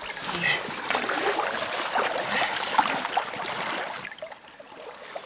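Shallow river water splashing and sloshing around an angler's hands and a large taimen held in the current to revive it before release. The splashing eases about four seconds in.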